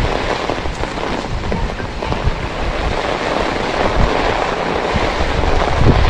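Heavy rain falling on a wet paved street, a steady loud hiss. Wind gusts buffet the camera microphone with low rumbles that grow stronger near the end.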